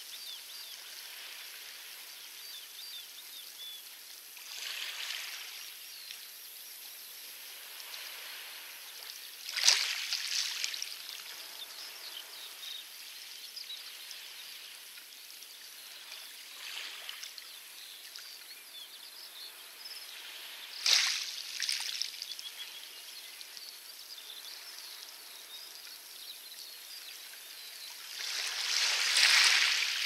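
Small waves washing onto a pebble beach: a steady hiss of water that swells several times, with sharp surges about ten and twenty-one seconds in and a longer wash near the end.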